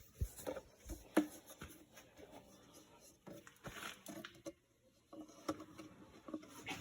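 Faint, scattered clicks and light knocks of a funnel being handled and fitted into the vent hole on the tractor's PTO housing, with a brief hush a little past the middle.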